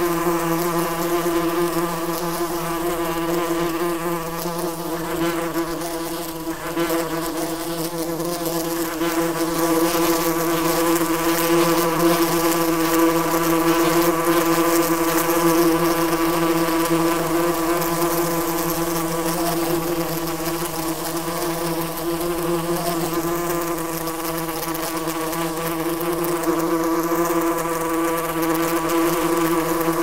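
A swarm of yellowjackets buzzing around their paper nest: a steady, many-winged drone with one clear hum at its core.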